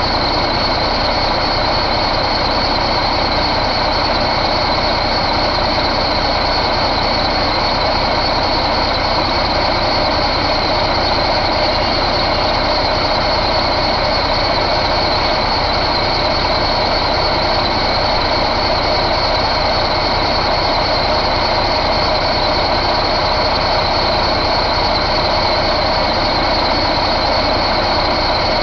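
Cummins ISX15 inline-six diesel engine running steadily at one speed, with a steady high-pitched whine over it.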